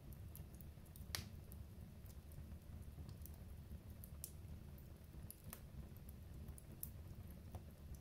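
Wood fire burning in an open fireplace: a quiet, steady low rumble of flame with scattered sharp crackles and pops, the loudest about a second in.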